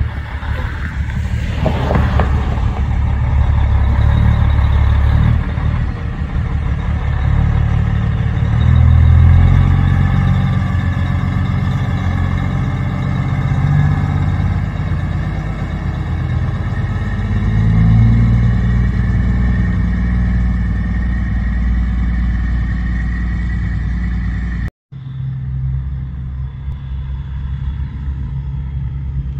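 Diesel engine of a big semi tractor pulling a loaded tanker, running loud and low as it pulls away and passes, its pitch rising and dropping several times as it works up through the gears. After a short break near the end, a steadier, quieter truck engine rumble carries on.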